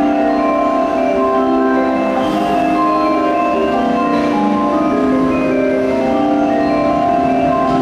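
A bell-like electronic melody of sustained, overlapping notes from the platform speakers: a Japanese station's train-approach melody, announcing the incoming train.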